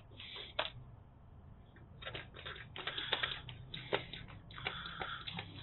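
Hand-held vacuum brake bleeder pump being worked by its squeeze handle, clicking in a run of short, irregular strokes as it builds vacuum at the bleed screw to draw brake fluid through the rear brake hose. There is a single click about half a second in; the steady clicking starts about two seconds in.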